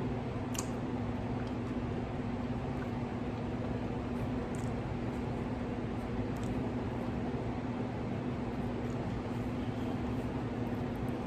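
Steady low hum with an even hiss underneath, like room or fan noise, with a few faint, short clicks.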